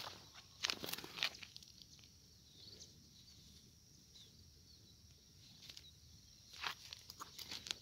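Footsteps crunching on dry soil and crop stubble: a few quick steps about a second in and again near the end, quieter in between. A faint steady high-pitched tone runs underneath.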